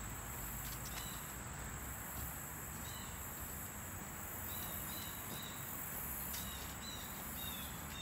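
Steady high trilling of crickets in a late-summer insect chorus over even background noise. A few short high chirps come in small groups about three, five and seven seconds in.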